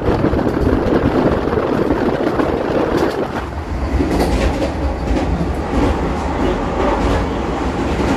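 Vande Bharat Express electric train running at speed: a steady rumble of wheels on the track, with wheels clacking over rail joints from about three seconds in.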